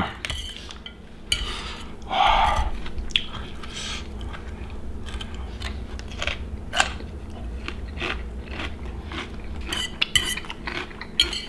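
Utensils clicking and scraping against plates, with crunchy chewing of papaya salad. Short scattered clicks and taps throughout.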